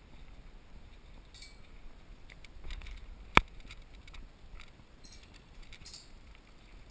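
A single sharp crack about halfway through, typical of an airsoft gun firing, over faint rustling and scattered small ticks.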